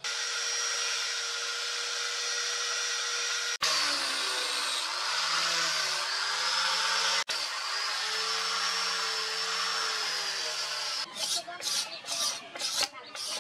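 Angle grinder fitted with a sanding disc running hard against wood, its pitch sagging and wavering as it is pressed into the handle, with two split-second breaks. About eleven seconds in it gives way to quick strokes of a hand file rasping the wood, about three a second.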